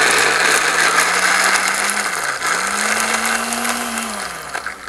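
Countertop blender running, pureeing roasted Japanese cabochan pumpkin pieces into a thick mash that is hard to blend. The motor's pitch sags about halfway through, picks back up, then winds down as the blender stops near the end.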